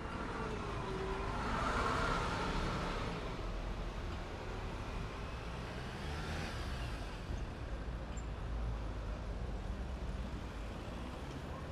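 An articulated city bus drives past close by: engine and drivetrain whine wavering up and down, loudest about two seconds in. Then steady street traffic rumble, with a car passing about six seconds in.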